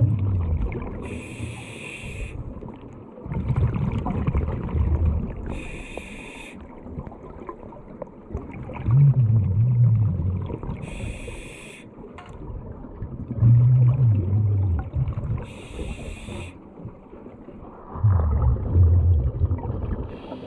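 Scuba diver breathing through a regulator underwater: short hissing inhalations alternate with longer, low, rumbling bursts of exhaled bubbles, about one breath every four to five seconds.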